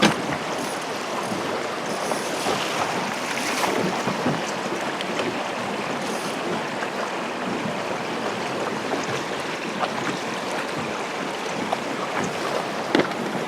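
Steady rush of flowing river water, with a few faint taps.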